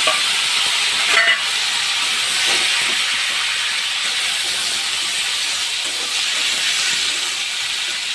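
Chopped vegetables (pointed gourd, potato and squash) sizzling steadily in hot oil with cumin in a kadai, with one brief clatter about a second in.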